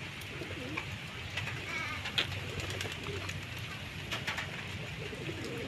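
Domestic racing pigeons cooing softly, with a few faint sharp clicks in between.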